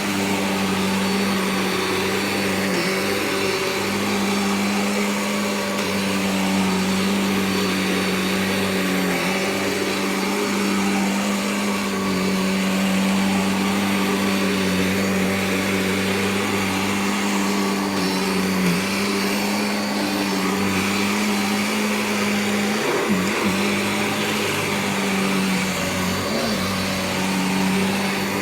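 Vacuum cleaner running steadily with a continuous whining drone and rushing air, its pitch wobbling briefly a few times about three-quarters of the way through.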